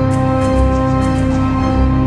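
Background music of long held notes over a low bass line.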